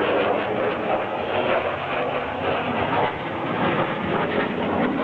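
Loud, steady jet engine noise from F-16 fighter jets in flight.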